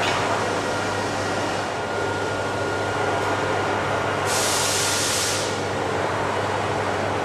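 Printing machinery running steadily with a low hum and a faint constant whine, plus a short burst of hiss about four seconds in that lasts about a second.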